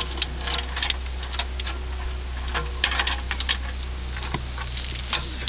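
Irregular light clicks and knocks of metal being handled on the underside of an overturned car, over a steady low hum.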